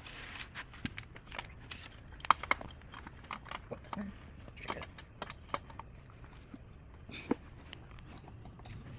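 Scattered light metallic clicks and knocks at irregular spacing, from tools and engine parts being handled on a partly dismantled Subaru EJ25 flat-four.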